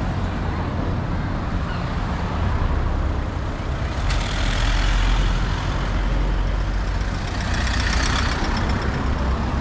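A heavy road vehicle's engine running with a steady low rumble, with a sudden louder rush about four seconds in.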